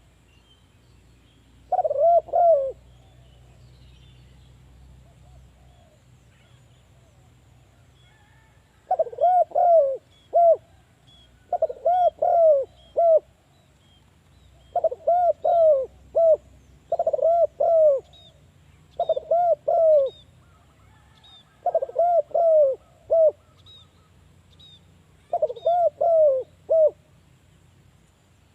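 Spotted dove cooing: eight phrases of three or four quick arched notes, one near the start, then after a long pause one every two to three seconds.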